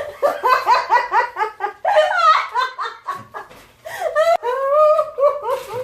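Hearty, high-pitched laughter, a quick ha-ha-ha run of giggles, breaking into a squeal about two seconds in.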